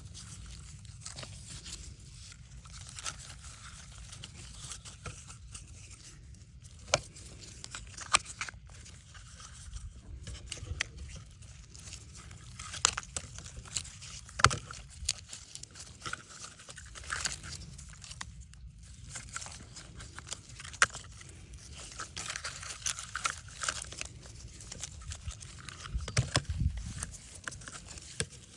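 Close-up hand work: irregular crinkling, scraping and tearing noises with scattered sharp clicks, the sharpest about seven, eight, thirteen and fourteen seconds in.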